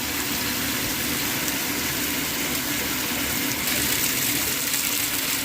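Shower water running in a steady rush, turned on to hot through a newly replaced Moen shower knob to test it.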